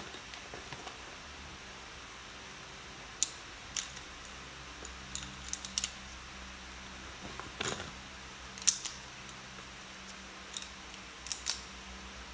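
Scattered sharp clicks and clacks of small hard stationery items, such as pencils and a pencil case, being handled. There are about a dozen irregular knocks, the loudest a little past the middle, over a faint steady hum.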